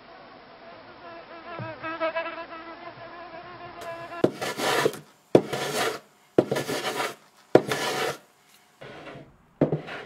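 Bees buzzing in a steady drone with a wavering pitch. About four seconds in the buzz gives way to four rasping strokes of a hand tool on wood, about a second apart, each with a sharp start.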